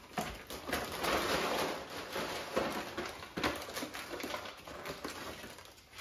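Tortilla chips rustling in a paper bag and being dropped onto a plate: an irregular run of dry crackles and light clicks.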